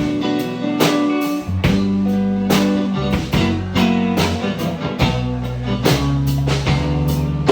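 Live band playing an instrumental blues-rock passage: guitar over drums with a steady beat.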